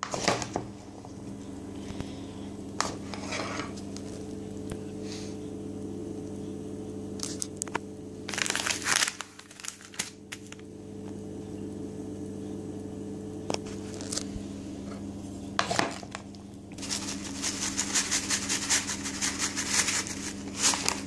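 A plastic seasoning packet crinkling as it is handled and torn open, then diced raw potatoes being tossed with a plastic spoon in a plastic bowl, with a dense patter of quick clicks near the end. A steady low hum runs underneath.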